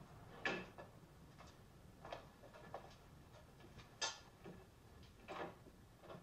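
Faint, irregularly spaced knocks and clicks of footsteps on a hard floor and things being handled, with a sharper click about four seconds in, as of a cabinet or latch being worked.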